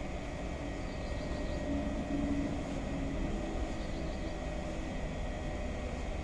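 Union Special 35800 feed-off-the-arm industrial sewing machine running steadily, a fast even mechanical rattle over a constant motor hum, while stitching a double seam in denim.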